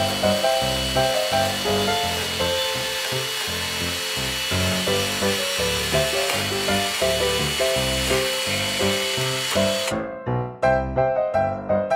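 A miniature chainsaw running with a steady high whine as it cuts through a small wooden log, stopping suddenly near the end, over background music with a steady beat.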